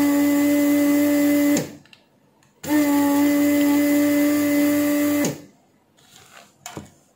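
Weller desoldering station's vacuum pump switched on twice, each time running steadily for about two and a half seconds with a hum over a rush of air, sucking molten solder from a resistor's leads through the hollow heated tip.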